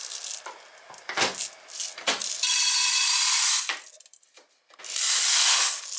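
Rice being readied in the kitchen: a few scrapes and knocks, then tap water running into the pot in two steady bursts of about a second each, with a short pause between them.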